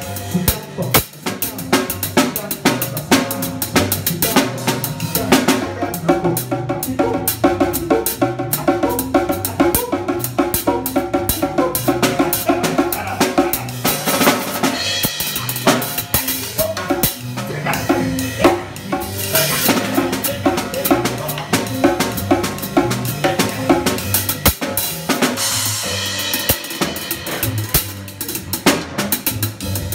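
Drum kit played live with sticks: snare, bass drum and cymbals in a steady groove, alongside an acoustic guitar repeating a short figure of notes.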